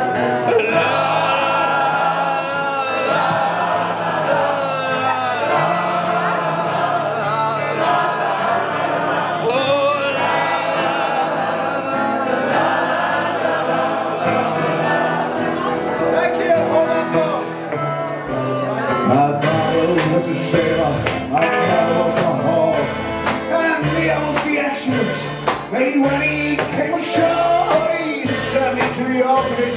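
Live band music: singing over accordion and sustained notes. About two-thirds of the way through, the drums come in on a steady beat.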